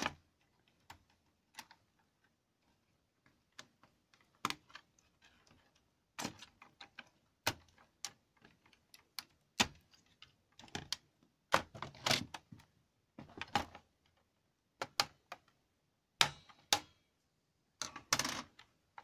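Irregular light plastic clicks and knocks of hands handling laptop parts and casing, sparse at first and more frequent after about six seconds.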